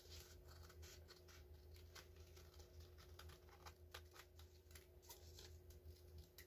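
Scissors snipping through a folded paper coffee filter: a run of faint, irregular cuts.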